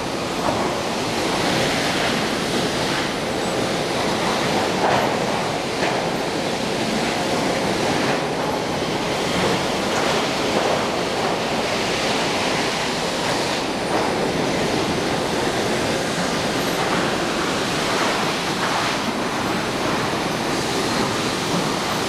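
Sawmill machinery running: a steady, dense mechanical din of conveyors, chains and equipment, with a few louder knocks now and then.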